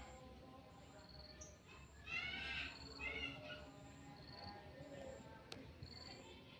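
Faint outdoor ambience of insects chirping in short high pulses about once a second, with a bird calling twice in quick chirping phrases about two to three seconds in.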